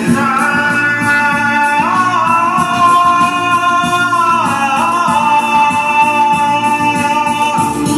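Song music: a slow melody of long held notes that step and slide between pitches, over a continuous backing accompaniment.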